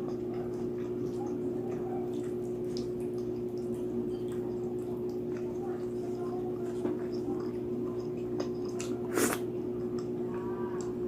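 Close-miked wet chewing and mouth sounds of someone eating roast pork: small smacks and clicks, with one louder click about nine seconds in, over a steady hum.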